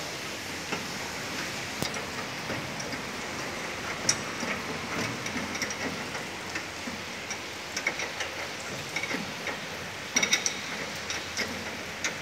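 Light, irregular metallic clicks and taps of hand tools working on an escalator's step chain and rollers, over a steady background hiss, with a louder cluster of clicks about ten seconds in.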